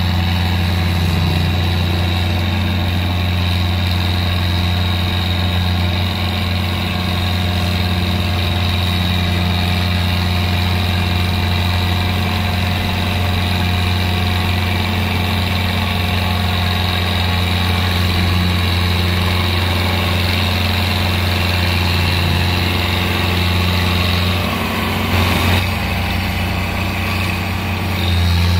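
Farm tractor's diesel engine running at a steady, unchanging speed as the tractor crawls through deep paddy-field mud. About 25 seconds in, the engine note briefly dips and turns rougher, then settles back.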